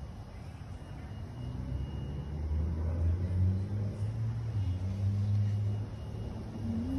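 Low engine rumble of a passing road vehicle, building over the first couple of seconds and dropping off about a second before the end.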